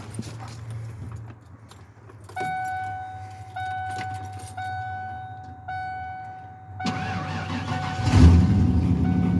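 Cold start of an OBS Ford F-150 with a Flowmaster Super 44 exhaust: the cab's warning chime dings four times about a second apart, then the starter cranks about seven seconds in and the engine catches with a loud burst a second later and settles into a steady idle.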